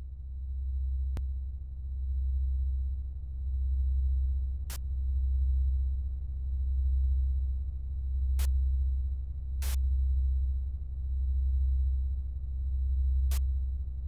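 Software-synthesized soundtrack of a 64-kilobyte demoscene intro: a deep bass drone that swells and fades in slow waves, about every one and a half seconds, with five sharp clicks scattered through it.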